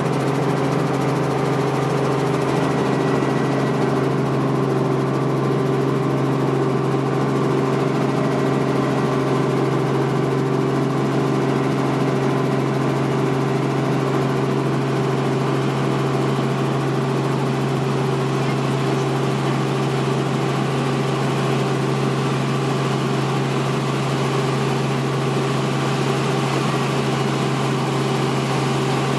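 Helicopter in flight: the steady, unbroken drone of its engine and rotor, with a low hum and a set of even tones above it.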